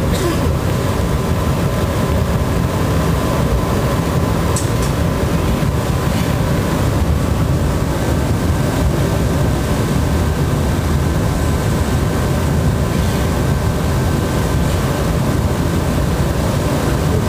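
Steady, loud roar of a glassblowing studio's gas-fired furnaces and glory holes with their combustion blowers running, a deep even rumble with a faint steady hum above it.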